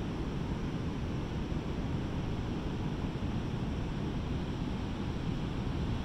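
Pacific Ocean surf breaking, heard as a steady low roar with no single wave standing out, with wind rumbling on the microphone.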